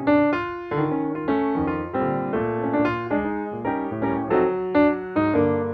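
Background piano music: a melody of struck notes, several a second, each fading, over lower chords.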